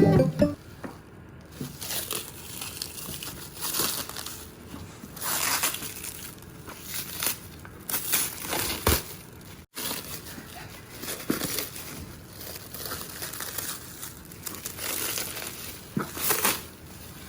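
Packaging being handled and opened: irregular crinkling and rustling of wrapping, in uneven bursts, with a brief break about ten seconds in.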